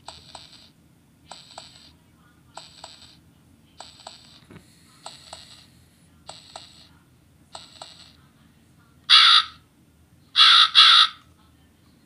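Handheld spooky sound-effects toy playing through its small speaker: a soft double beat repeated seven times, about one every 1.25 s, then three loud crow caws, one and then a pair.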